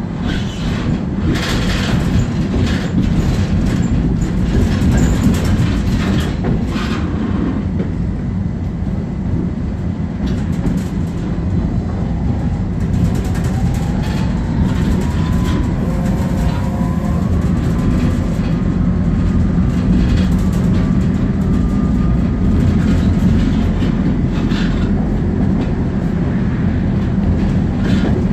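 Tatra T4D tram running on its rails, heard from inside the car: a steady low rumble, with wheel clicks and knocks over the track in the first few seconds and a faint whine rising in pitch through the middle.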